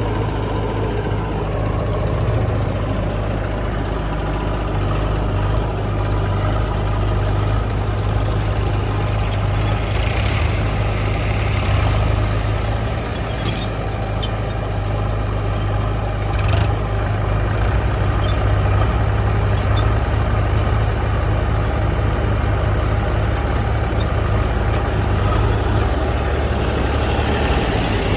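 Heavy diesel engine of a JCB 3DX backhoe loader running steadily as it works. There is a brief hiss about ten seconds in and a sharp click about sixteen seconds in.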